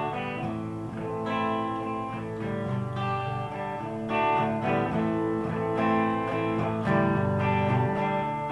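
Custom T-style (Telecaster-style) electric guitar played on its neck single-coil and bridge Lace Alumitone humbucker together. Picked chords and single notes ring out, with a new chord or phrase about every second.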